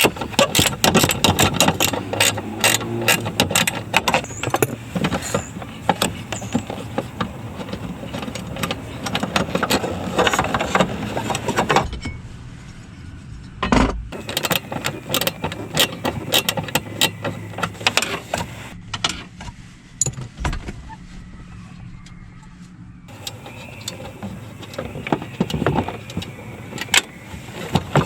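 Irregular clicks, clinks and rattles of hand tools and plastic interior trim being worked loose, with a couple of quieter pauses, while parts are taken off a 1997–2001 Honda CR-V's dashboard to reach the cabin air filter.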